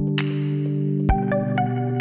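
Background electronic music: sustained synth chords with two low drum hits about a second apart and short bright plucked notes.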